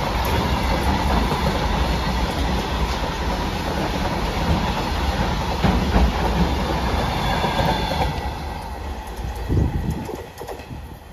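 Container wagons of a freight train rolling past, wheels clattering over the rail joints over a steady rumble. About eight seconds in, the sound drops away as the brake van at the tail passes and the train pulls off into the distance.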